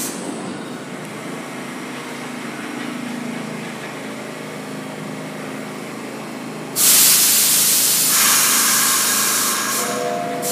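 A stopped R62A subway train humming steadily, then a sudden loud release of compressed air from its pneumatic system about two-thirds through, hissing and fading over about three seconds. A few short tones follow near the end.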